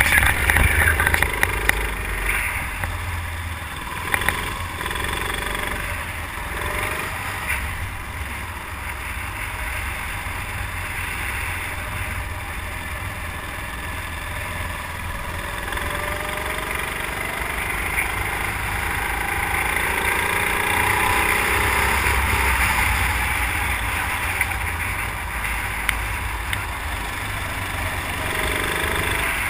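Go-kart engine heard from onboard at racing speed, its pitch rising and falling as the kart brakes and accelerates through corners, over a heavy low rumble from wind on the microphone.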